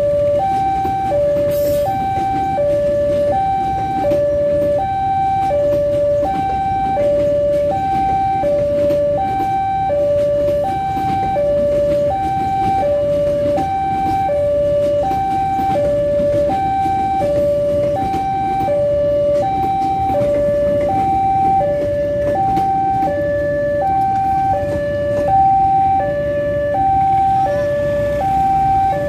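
Railway level-crossing warning alarm sounding a steady two-tone electronic ding-dong, the high and low notes alternating about every two-thirds of a second, over the low rumble of a passing train.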